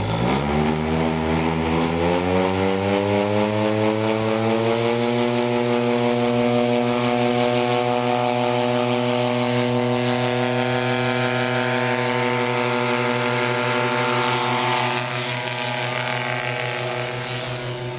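Paramotor trike's engine and propeller revving up to full power for the takeoff run, the pitch rising over the first few seconds and then holding steady at high revs. It gets a little quieter near the end as the trike climbs away.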